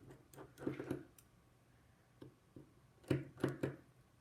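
Small scattered clicks and taps of a precision screwdriver working the tiny screws inside an iPhone 4, with a quick cluster of clicks near the end.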